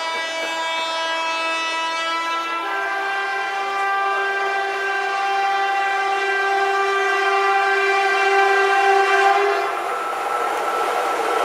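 WCAM2 electric locomotive's air horn sounding one long continuous blast of about ten seconds. It steps up to a higher note about two and a half seconds in, then cuts off. The rumble of the train going by rises just after.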